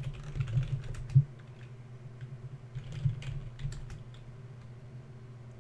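Typing on a computer keyboard: irregular key clicks, a few at a time, over a steady low hum.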